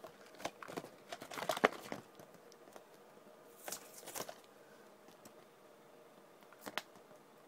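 Hands handling a toy's cardboard-and-plastic packaging: scattered rustles and small clicks, busiest in the first two seconds, with a few more around four seconds in and near the end.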